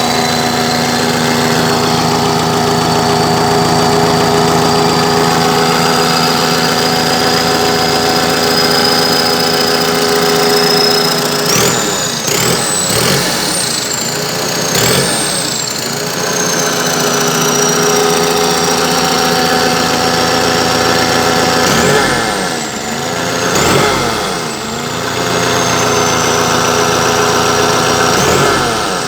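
Perkins diesel engine running after a repair, idling steadily with a high whine that slowly climbs. It is revved up and let fall back a few times: two or three blips about twelve seconds in, two more a little past twenty seconds, and one near the end.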